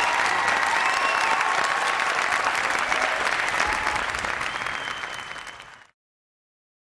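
Audience applauding with cheers, fading out from about four seconds in and ending in silence just before six seconds.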